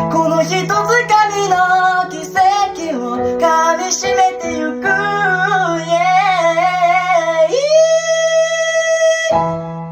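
A voice singing a melody with vibrato over guitar accompaniment, ending on one long held high note that cuts off sharply near the end while the guitar rings on.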